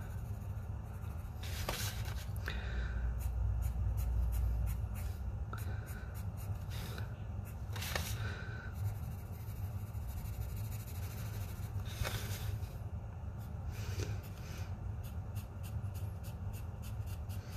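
Graphite pencil shading on drawing paper: a run of short, quick strokes scratching back and forth as an area is filled in dark, the strokes coming faster near the end.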